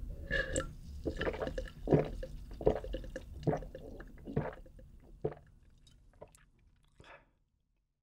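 A person drinking from a mug in big gulps: a sip at the start, then about five swallows, roughly one every 0.8 seconds.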